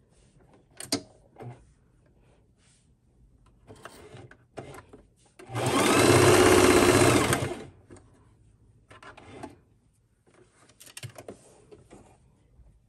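Electric sewing machine running in one short burst of about two seconds, stitching a strip of elastic onto cotton fabric. A few light clicks from handling the fabric and machine come before and after.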